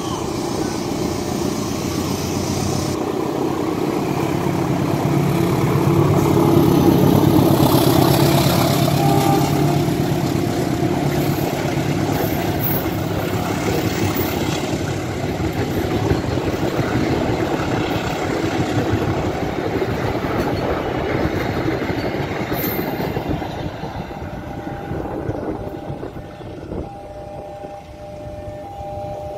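Diesel locomotive hauling a passenger train passes close by. The engine noise builds to its loudest about seven seconds in, then the coaches' wheels rumble steadily over the rails, fading near the end as the train draws away.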